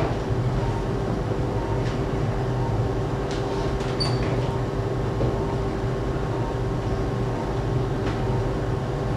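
Steady hum and low rumble of operating-room equipment during arthroscopic shoulder surgery, with a few faint clicks and a very short high beep about four seconds in.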